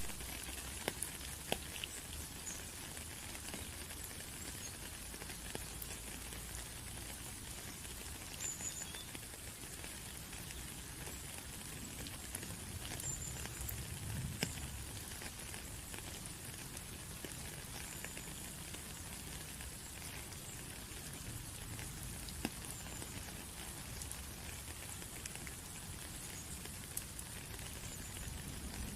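Steady rain pattering, with scattered sharper ticks of single drops.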